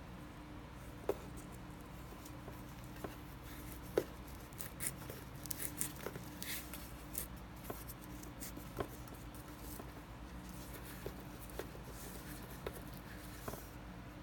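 Faint handling noise of fingers working a nylon paracord lure: scattered light clicks and taps, with a run of short rubbing rasps in the middle as the cord is slid and squeezed, over a low steady hum.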